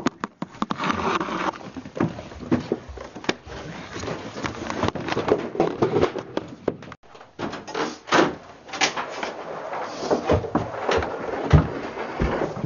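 Handling noise from a handheld camera carried about: irregular knocks, bumps and rustling, with the lens rubbing against clothing near the end.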